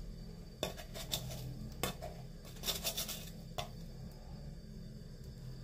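A handful of light, irregular clicks and taps of small kitchen items being handled, over the low steady rush of a tabletop gas burner.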